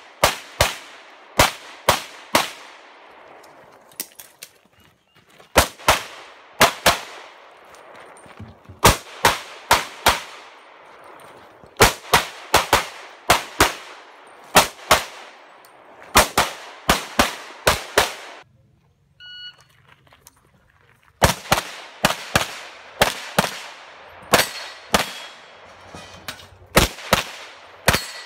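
Rapid pistol fire on a practical-shooting stage: quick strings of two to four shots fired in fast succession, with short pauses between strings and a break of about three seconds past the middle.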